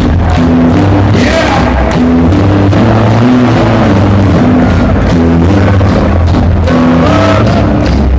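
Hardstyle dance music played very loud over an arena sound system, with a repeating pattern of held bass notes and a melody above them. The recording is overloaded and harsh, pinned near full level throughout.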